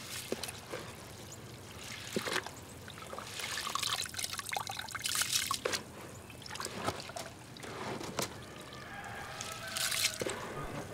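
A hand stirring and scooping feed wheat soaking in water in a plastic tote: wet grain and water sloshing and trickling in irregular bursts. The wheat is being left to rot in the water like a mash.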